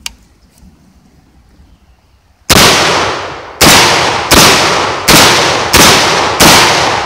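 SDS Lynx 12 semi-automatic 12-gauge shotgun firing light 7.5 birdshot loads: six loud shots, the first about two and a half seconds in and the rest in quick succession roughly two every three seconds, each with a short echo. A couple of faint clicks come just before, near the start.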